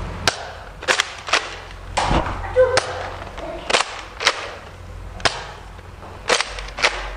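Nerf foam-dart blasters firing in a mock battle: about a dozen sharp snaps at irregular intervals, some coming in quick pairs.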